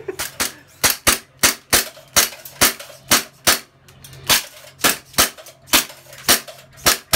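Airsoft gun firing single shots in steady quick succession, about three sharp cracks a second, while being test-fired at a target booth.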